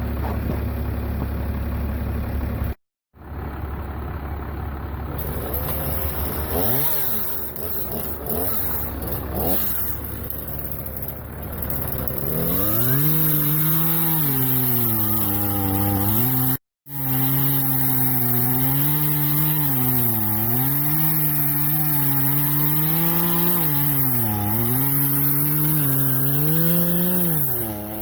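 Chainsaw cutting tree limbs, its engine revving up and dipping in pitch again and again as it bogs in the cuts. A steady low engine hum comes first.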